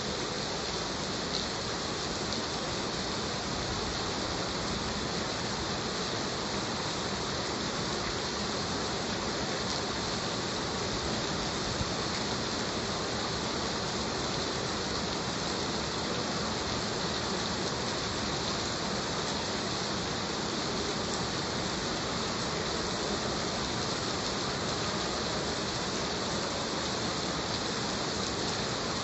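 Heavy rain falling steadily, a dense even hiss of drops with no breaks.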